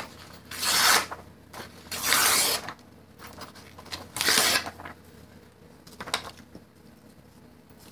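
Printed paper calendar pages being torn by hand into strips: three long rips about one and a half seconds apart, then a short fainter tear about six seconds in.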